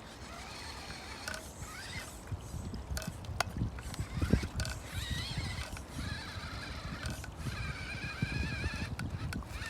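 FTX Ravine RC crawler's electric motor and geared drivetrain whining in uneven spurts as it crawls over rough, muddy ground, with scattered knocks and rumbles from the chassis and tyres.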